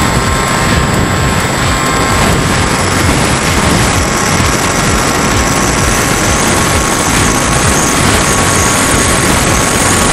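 Onboard audio from a HobbyKing Bix3 foam RC plane in flight: loud wind rush and buffeting over the camera, with the steady whine of its electric motor and pusher propeller.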